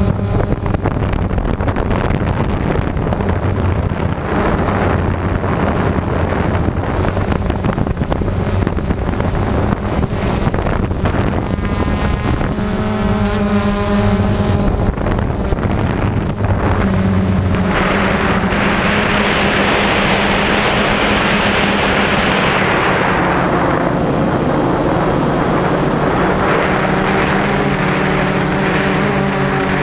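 DJI Phantom quadcopter's motors and propellers buzzing steadily, heard from on board, the pitch of the hum wavering and shifting as the motors change speed. A broad rushing noise swells about 18 seconds in and fades again about six seconds later.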